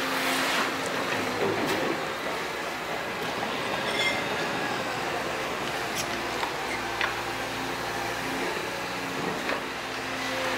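Liebherr R926 compact excavator running steadily as its tiltrotator bucket scrapes along a dirt and stone slope, with scattered sharp clicks from stones. Its engine and hydraulic note changes about two-thirds of the way through as the arm works.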